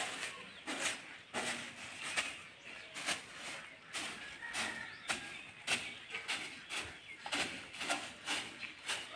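Hand-held grass broom swept in quick strokes over a threshing machine's metal body and feed opening, brushing off chaff and dust: a run of rough swishes, roughly two a second.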